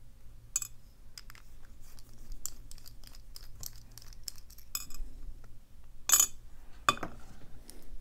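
Small metallic clicks and scrapes of a precision screwdriver backing out the tiny screws that hold the cam on a brass lock cylinder, then two sharper clinks, about six and seven seconds in, as small metal parts are set down on a metal tray.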